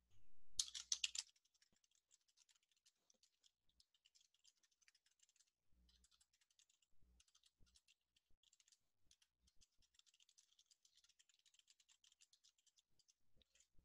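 Faint computer keyboard typing: a quick run of keystrokes in the first second, then scattered light key taps.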